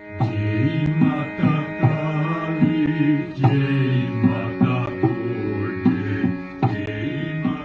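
Instrumental intro music in an Indian style: a steady drone of held tones with hand-drum strokes played over it.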